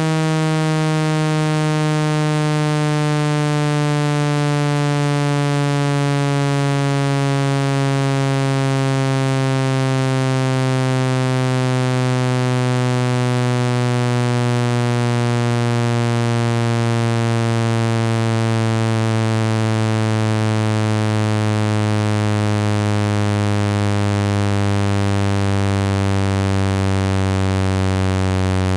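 Synthesized low buzzy tone for ejecting water from a phone speaker, rich in harmonics, its pitch sliding slowly and evenly downward throughout.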